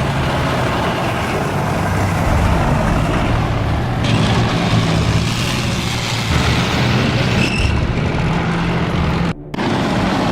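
A motor vehicle's engine running with a steady low hum under loud, rushing noise; the sound cuts out briefly near the end.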